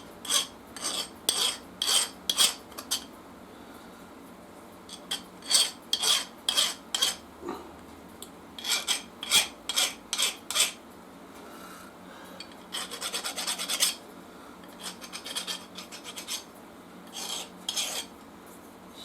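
Hand file rasping across the edge of a sintered brake pad in short, quick strokes, in several runs with pauses between. The pad's edges are being chamfered so it wears evenly in a floating caliper.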